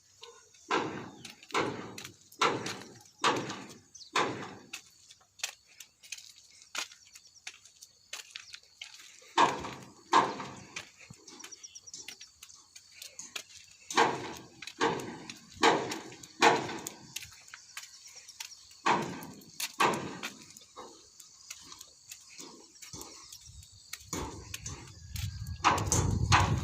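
Repeated knocks, a little over one a second and in two runs with a pause between, of the kind made by hammering metal on a cement-pole mould being repaired. A low, steady rumble comes in near the end.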